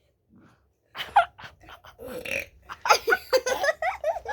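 A boy burps once, about two seconds in, for about half a second, then laughter follows.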